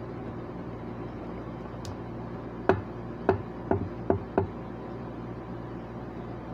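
Five quick light taps of a hard object on a hard surface, about half a second apart, over a steady low hum.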